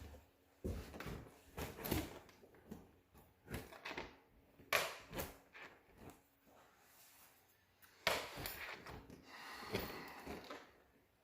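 A newly installed deadbolt being tested: a string of sharp clicks and knocks as the bolt is thrown and drawn back and the door is handled, the loudest about five and eight seconds in.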